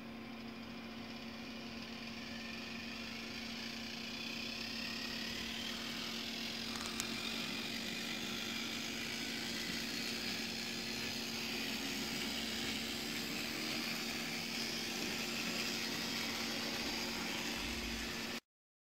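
Steady engine-like running noise from a model railway, with a low steady hum, slowly growing louder. A single click about seven seconds in; the sound cuts off suddenly near the end.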